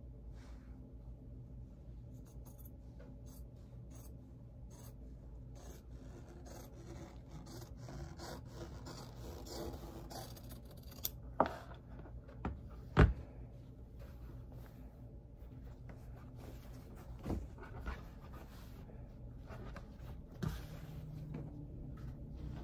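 Scissors snipping through fabric, with the cloth rustling and sliding across the table as it is handled; two sharp clicks stand out about eleven and thirteen seconds in.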